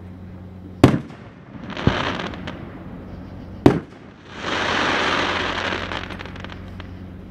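Aerial fireworks shells bursting overhead: two sharp booms, about a second in and past the middle, each followed by a spell of hissing, crackling noise, the longer one after the second boom.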